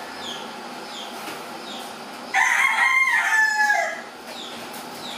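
A rooster crows once, starting about two seconds in: a loud held call lasting about a second and a half that drops in pitch at the end. Short high falling chirps from a small bird repeat steadily underneath.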